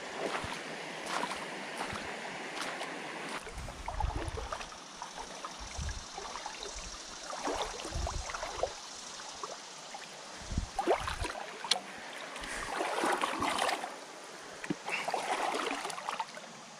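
A person wading through a shallow river: water sloshing and splashing around the legs with each uneven step, with a few dull low thumps along the way.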